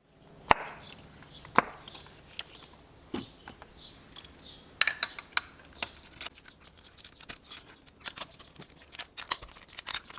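Irregular clicks, knocks and clinks of hand tools on the engine as the spark plugs are taken out, with a denser run of small clicks in the second half. The loudest knocks come in the first couple of seconds.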